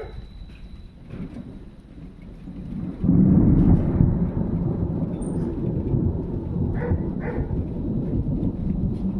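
Thunder: a sudden loud, low crack-and-rumble about three seconds in that keeps rolling on, after a few seconds of fainter rumbling.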